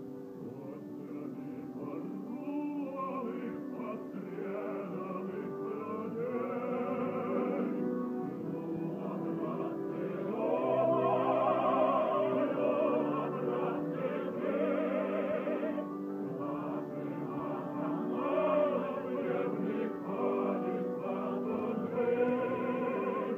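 Three male singers of a Ukrainian vocal group singing a song together, their voices swelling louder about ten seconds in.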